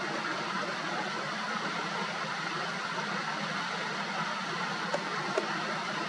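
Steady rushing outdoor background noise at an even level, with two faint ticks near the end.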